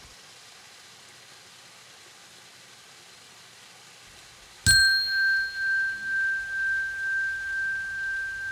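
A bell struck once about four and a half seconds in, ringing on in one clear high tone that wavers slowly as it fades, marking the end of the guided practice. Before the strike there is only a faint steady hiss.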